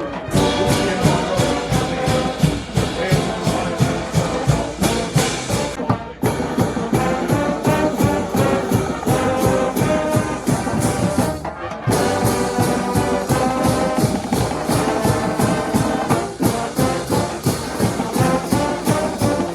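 A marching band's brass section playing over a steady drum beat. The music breaks off abruptly twice, about 6 and 12 seconds in, as different passages follow one another.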